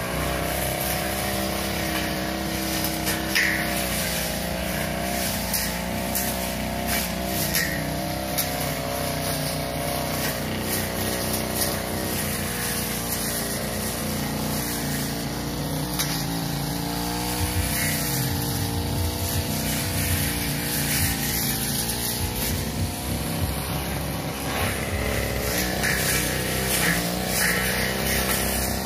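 Two-stroke backpack brush cutter (a 328-type engine driving a long 45 cm blade) running at cutting speed, its engine pitch wavering slightly as the blade works through grass and weeds. Short sharp ticks sound here and there over the steady engine note.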